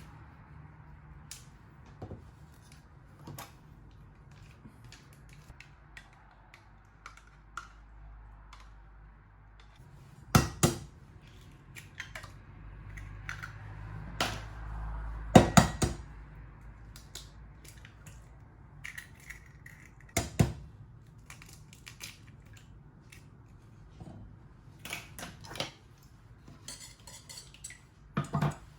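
Kitchen dishes and cutlery clinking and knocking in a scattered, irregular run, with a few louder clatters and a low steady hum underneath.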